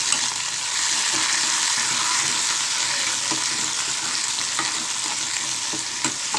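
Chopped onions, green chillies and curry leaves sizzling steadily in hot oil in a pan while a slotted spatula stirs them, with small scraping clicks of the spatula against the pan.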